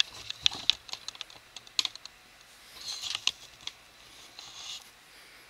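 Objects being handled by hand: a quick run of light clicks and taps in the first couple of seconds, then two brief rustles.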